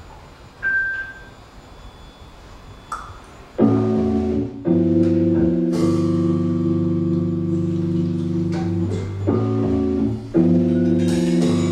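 Electric keyboard beginning a song intro with slow, held chords that start about three and a half seconds in and change twice. Before that it is quiet apart from a short high tone about a second in.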